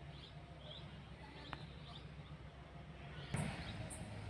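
Low, steady rumble of a dump truck's diesel engine running, with small birds chirping over it and one sudden loud knock a little past three seconds in.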